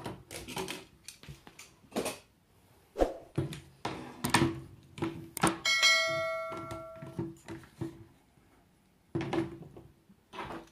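Tripod parts knocking and clicking as they are handled on a wooden table, a string of sharp knocks with pauses between. Just before the middle comes a bright bell-like ding from a subscribe-button sound effect, ringing for about a second and a half.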